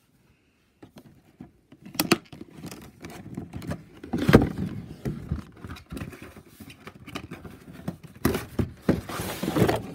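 Cardboard toy box being worked open by hand: scraping, rustling and clicking of cardboard and plastic packaging, with a sharp knock about four seconds in and a longer rustling scrape near the end.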